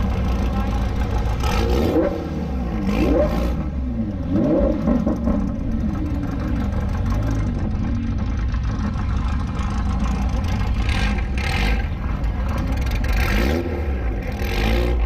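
Lamborghini Huracan's V10 engine running under a steady low rumble, revved several times with quick rising and falling sweeps in the first few seconds.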